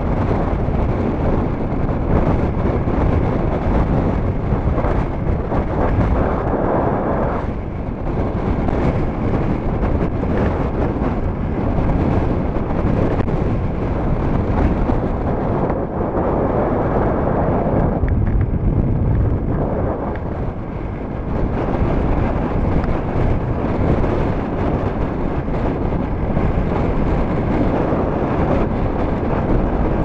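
Storm-force wind buffeting the microphone, swelling and easing in gusts, over choppy lake waves washing onto a gravel shore.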